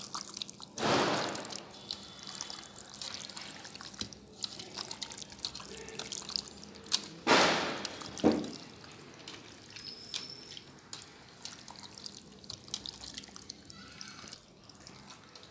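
Raw chicken pieces being mixed by hand with curd in a steel bowl: a run of small wet clicks and crackles from the kneaded meat, with three louder wet bursts about a second in and around seven and eight seconds.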